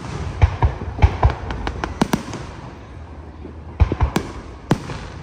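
Aerial fireworks shells bursting overhead: a quick string of sharp bangs through the first couple of seconds, a short lull, then another cluster of bangs near the end.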